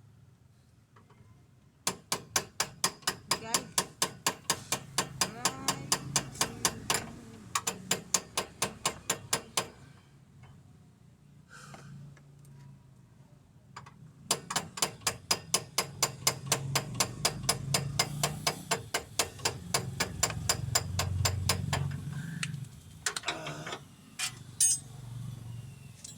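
Steady, rapid metal clicking or tapping from hand-tool work, about four to five sharp strikes a second, in two long runs with a pause between, then a few single knocks near the end.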